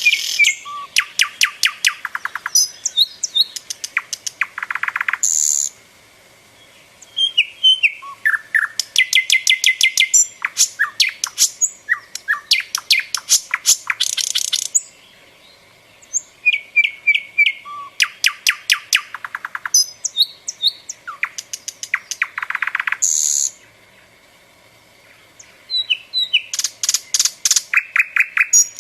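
Common nightingale singing: loud, varied phrases of fast repeated notes, trills, whistles and short buzzy notes, each phrase several seconds long, with three short pauses between them.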